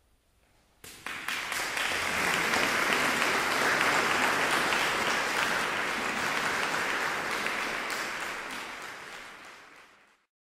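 Applause: many hands clapping, starting suddenly about a second in and fading out near the end.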